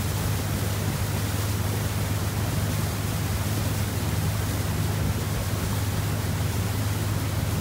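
Mercury 225 outboard running at a steady speed as the boat travels, a constant low drone under a steady hiss of wind and water.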